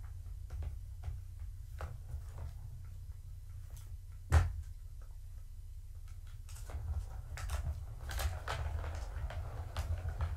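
Kittens batting at a Catit plastic ball-track toy: scattered clicks and knocks of plastic, with one sharp knock about four seconds in. Busier scuffling and rattling follows from a little past halfway, over a steady low hum.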